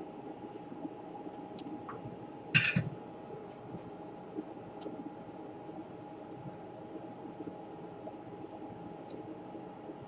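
Steady workbench hum and hiss, with one brief clatter of a tool on the bench about two and a half seconds in.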